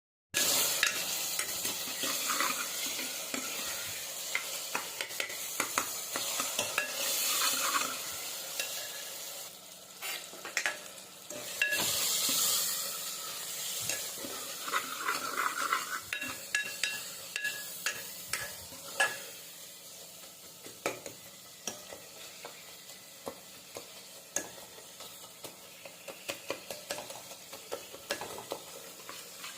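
Food sizzling in a pan while a spatula stirs it, with scattered clicks and scrapes of the spatula against the metal. The sizzle is strongest for about the first twelve seconds, then dies down, leaving mostly the spatula's irregular clicks.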